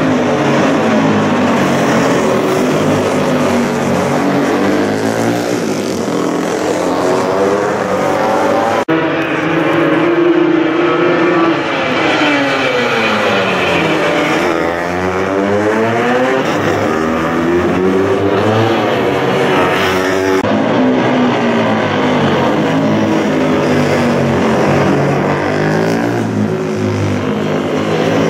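Engines of several classic racing motorcycles at speed, passing one after another. The pitch drops and climbs again around the middle as a bike slows for the corner and accelerates away. The sound changes abruptly about nine seconds in and again about twenty seconds in.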